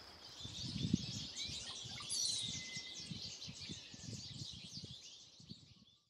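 Many small birds chirping and twittering together in a dense, overlapping, high-pitched chorus, with soft low thumps underneath. It fades out just before the end.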